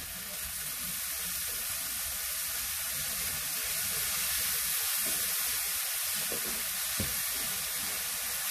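Sliced ham with onion, garlic and tomato sizzling steadily in an oiled frying pan as it is stirred with a spatula.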